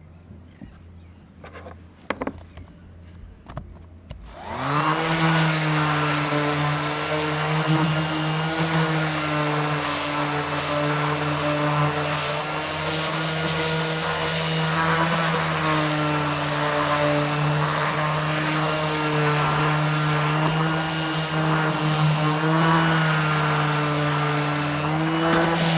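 Electric power sander starts up about four seconds in and runs steadily, its pitch wavering slightly, after a few light knocks.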